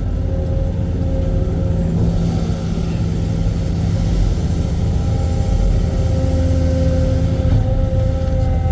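Excavator's diesel engine and hydraulics running steadily under load: a deep drone with a steady whine over it. A hiss swells about two seconds in and fades by about six seconds.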